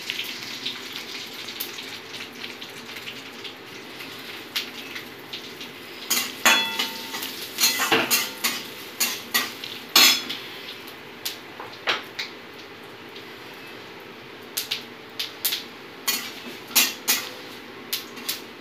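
A flat metal spatula clinks and scrapes against a metal kadhai in irregular knocks while stirring a tempering of mustard seeds, dried red chillies and curry leaves frying in mustard oil. A faint sizzle of the hot oil is heard mostly in the first few seconds.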